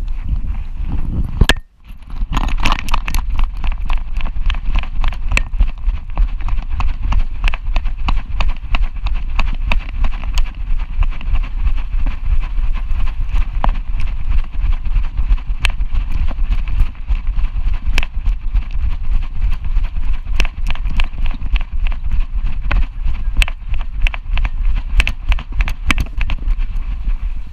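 A Boston Terrier runs on sand with a camera strapped to its back. The dog's gait jolts the camera, making rapid, irregular knocks over a steady low rumble of wind on the microphone.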